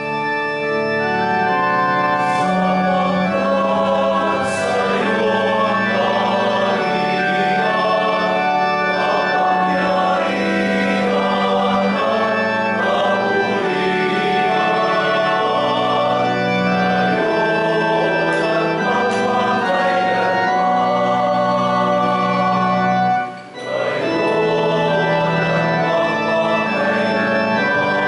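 Church organ playing long held chords under a choir singing liturgical music, with a short break about three-quarters of the way through.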